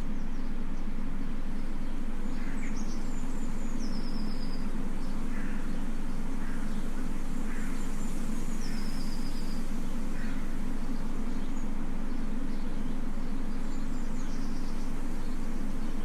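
Steady low drone with small birds chirping over it, including two short descending trills a few seconds apart.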